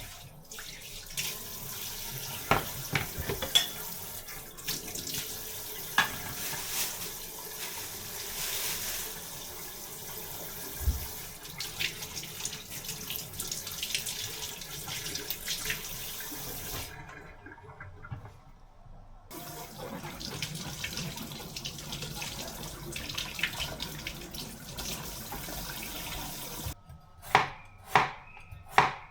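Water running from a kitchen tap into a sink, with scattered knocks and clinks, broken by a brief pause partway through. Near the end the water stops and a knife starts chopping on a cutting board, about two strokes a second.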